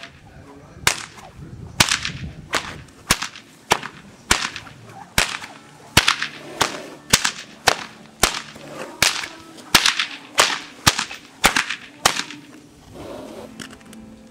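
A whip being cracked over and over from horseback, about twenty sharp cracks a little under two a second, stopping about twelve seconds in.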